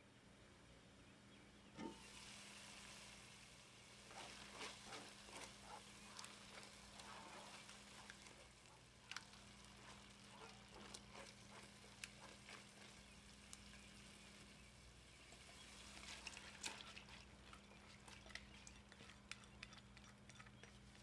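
Food faintly sizzling in a pot, with scattered clicks and taps of a utensil stirring, over a low steady hum. The sizzling starts about two seconds in.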